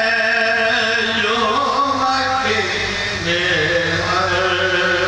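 Men's voices chanting a marsiya, the Urdu elegy for Imam Husain, in long, drawn-out sung lines: a lead reciter with other men's voices sustaining the melody with him.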